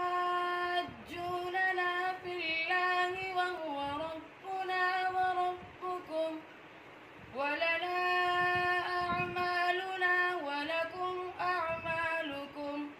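A boy's unbroken voice reciting the Quran from memory in melodic tajwid style, unaccompanied, with long held and ornamented notes. He recites in two long phrases, breaking for breath about six seconds in.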